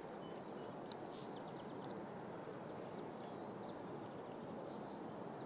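Steady outdoor rushing background with scattered faint clicks and crunches from a North American river otter chewing a fish, and a few brief high chirps.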